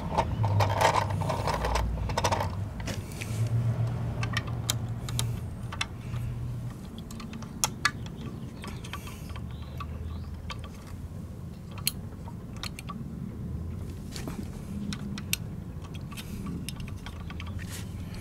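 A hand-worked diecast model garbage truck: a low rolling rumble as it is pushed over a gritty surface in the first several seconds, then scattered small clicks and taps of its metal and plastic parts as the front-loader forks are set against a toy trash cart.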